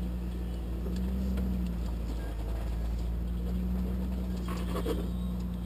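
Off-road Jeep's engine running steadily at low revs as it crawls over rock, with a short louder noise about four and a half seconds in.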